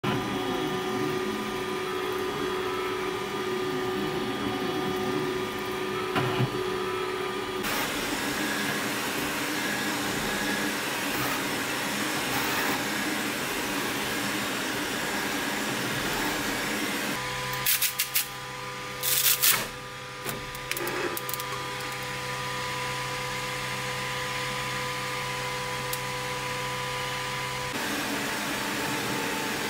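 Creality K2 Plus 3D printer running a print: a steady whir of fans with several whining motor tones that change pitch abruptly a few times. A cluster of short, sharp noises comes about two-thirds of the way through.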